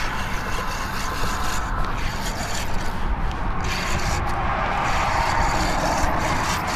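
Wind buffeting the microphone, a steady rushing noise with a heavy low rumble.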